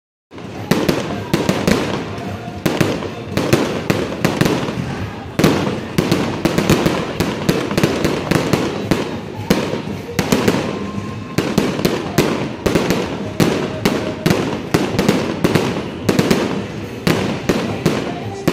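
Fireworks going off in a continuous barrage: many sharp bangs several a second, with no let-up.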